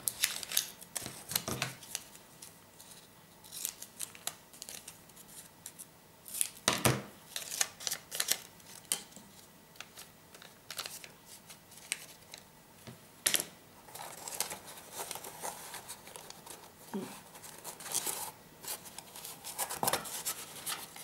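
Paper and card being handled and cut at a work table: scattered rustles, taps and snips, the loudest about seven and thirteen seconds in.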